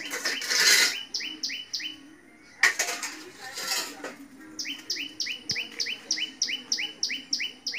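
A songbird calling a quick run of short, identical high chirps, about three a second, first briefly and then for several seconds. Two loud bursts of rustling noise come at the start and about a third of the way in.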